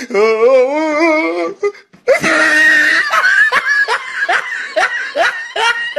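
Loud laughter: a wavering, drawn-out laughing voice for about the first second and a half, then, after a brief break, a run of short laughing bursts about three a second.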